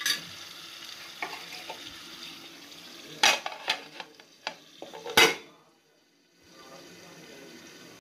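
Chicken curry sizzling and simmering in an aluminium pot, then sharp metal clanks of a ladle and an aluminium lid against the pot as it is covered, the loudest a little after three seconds and just after five seconds. A fainter steady simmer follows under the lid.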